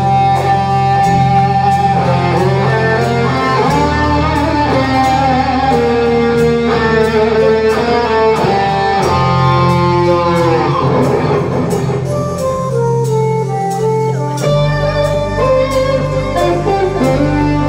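Live rock band playing an instrumental passage: an electric guitar carries a lead melody of long held notes over bass, keyboards and drums. About ten seconds in, a lead note slides down in pitch.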